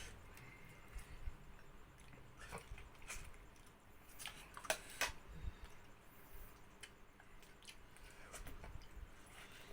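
Quiet eating: soft chewing with a few faint clicks of cutlery against a dish.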